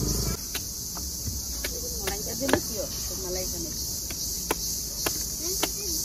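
Steady high-pitched chorus of insects shrilling, with about ten sharp knocks spread irregularly through it and faint voices in the background.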